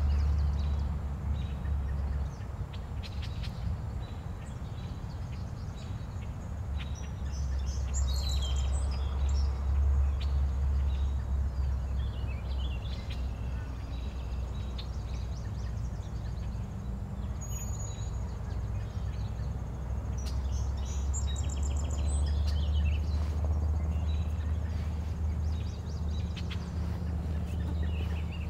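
Bird calls: two bouts of high chirping calls, about 8 seconds in and again about 21 seconds in, with a few fainter calls between, over a low steady rumble.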